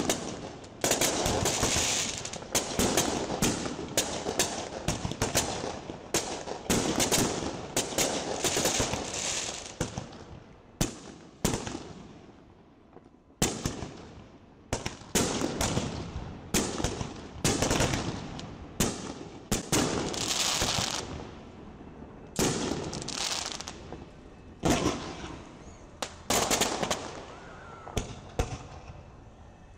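Fireworks display: aerial shells bursting in quick, irregular succession with sharp bangs and crackle. The bangs ease off for a couple of seconds about halfway through, then pick up again.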